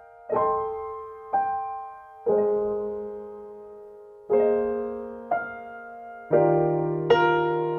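Slow, gentle solo piano background music: soft chords struck about once a second, each left to ring and fade.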